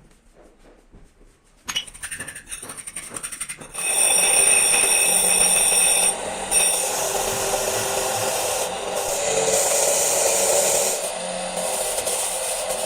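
Power tool in turbocharger repair work: rattling clicks, then from about four seconds in it runs loud and steady with a high-pitched whine and hiss, dipping briefly about six seconds in.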